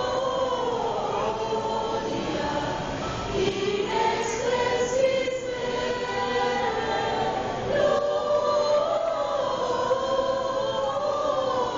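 Mixed choir of women's and men's voices singing together, holding long notes.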